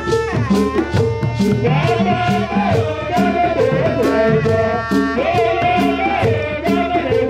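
Traditional Tiv dance music: hand drums beating a fast, steady rhythm, with a sliding melody line over them in two long phrases, about two seconds in and again near five seconds.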